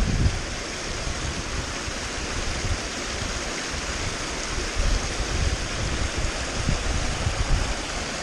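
Mountain beck rushing over rocks and small cascades, a steady hiss of water, with a few low bumps now and then.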